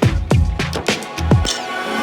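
Background electronic music with a steady drum beat and deep kick drums; about one and a half seconds in the beat drops out and a sustained synth pad with a rising sweep takes over.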